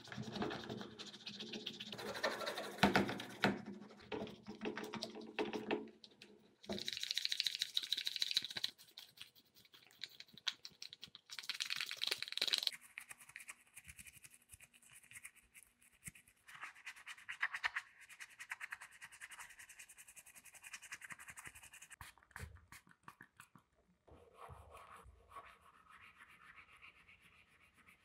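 Wet scrubbing and brushing of plastic drill housing parts in soapy water, as rapid bristle-and-sponge rubbing strokes in several short stretches that change abruptly. Near the end, a toothbrush scrubs a small plastic badge plate with quick scratchy strokes.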